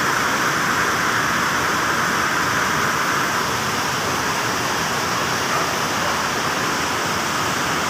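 A steady, even hiss, like rushing air, with no pitched machine sound or knocks in it.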